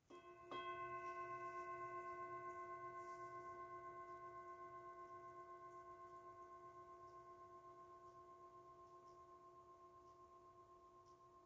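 A singing bowl struck once about half a second in, ringing with several overtones that waver in loudness and slowly fade.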